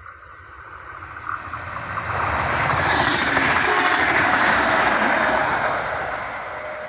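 RENFE UT-470 three-car electric multiple unit passing close by at speed: a rising rush of wheel-on-rail and running noise that peaks about two to five seconds in as the cars go past, then fades as the train draws away.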